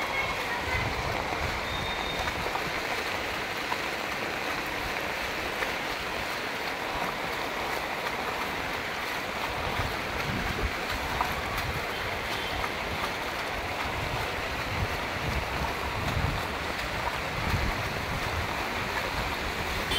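Heavy monsoon rain pouring onto a flooded street: a steady rushing hiss of rain and water, with scattered low rumbles.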